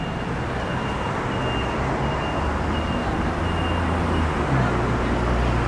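City street traffic with a vehicle engine rumble that grows louder about halfway through. A short high beep repeats about once every 0.7 s through the first half, then stops.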